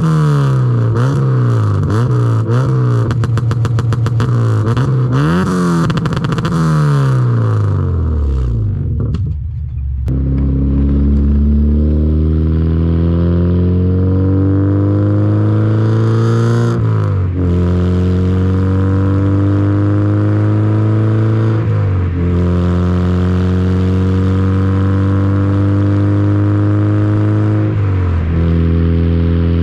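Honda Civic's swapped K20A2 2.0-litre inline-four revved up and down about once a second, then launching and accelerating hard. The engine pitch rises steadily through the gears, dropping sharply at three upshifts a few seconds apart.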